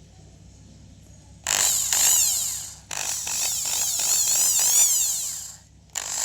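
Electric drill running in three spurts starting about a second and a half in, the last one beginning near the end. Its high motor whine sweeps up and down in pitch again and again as the speed changes.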